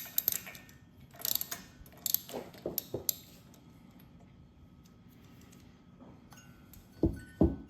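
Scattered light metallic clicks and clinks of hand tools on the spark plug, mostly in the first three seconds, then two dull thumps near the end.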